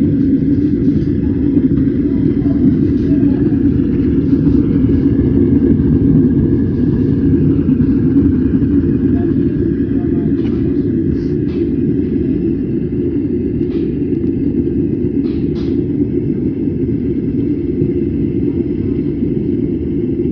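Horizontal 6-inch waste-oil burner running: a steady, loud, low roar, with a few faint ticks.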